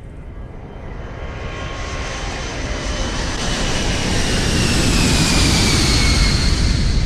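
Jet aircraft engine noise swelling as the plane approaches, a deep rumble with a high whine that glides slowly down in pitch, levelling off loud about two-thirds of the way in.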